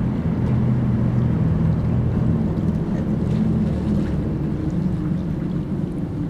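A boat engine running steadily, a low, even hum, over a light wash of water.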